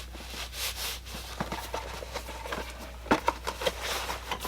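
Packaging and a boxed item being handled: a short rustle, then a series of light clicks and knocks, the sharpest about three seconds in.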